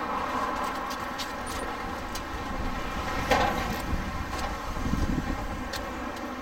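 Sliding steel doors of a storage shed being pushed shut and latched by hand: small metal clicks, a sharper knock about three seconds in, and a low rumble near the end, over a steady hum of road traffic.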